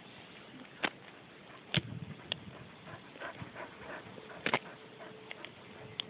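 An old dog making small sounds close to the phone, with a few short, sharp clicks scattered through.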